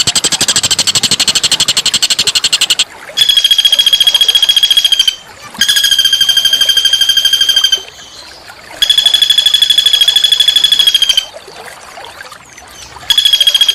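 A small songbird giving harsh, rapid rattling trills at one steady pitch. Each bout lasts about two seconds, and the bouts repeat about five times with short pauses between them.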